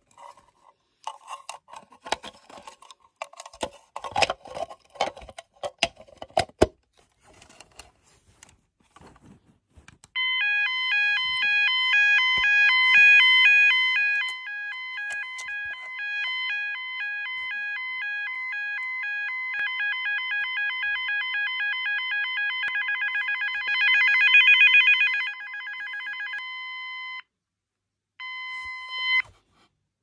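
Signature Industries YA30 (Clifford & Snell Yodalarm) electronic fire alarm sounder. Its plastic housing clicks and knocks while it is handled for the first several seconds. About ten seconds in it sounds a loud multi-tone alarm that steps back and forth between several pitches, speeds up into a fast warble and stops shortly before the end, followed by a short tone burst.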